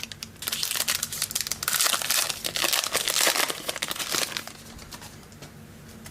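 Trading card pack wrapper being torn open and crinkled, a dense crackling that runs for about four seconds and stops near the end.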